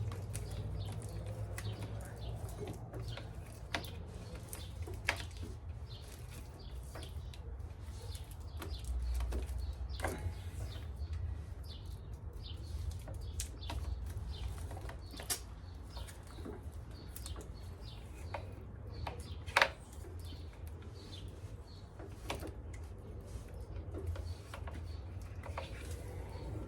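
Hands working on motorcycle wiring: scattered clicks, taps and rustling from handling the wires and electrical tape, over a low steady rumble.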